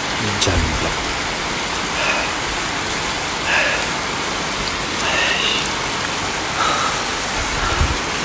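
Heavy rain pouring onto wet asphalt and parked cars, a steady hiss of falling rain, with a couple of dull low bumps about half a second in and near the end.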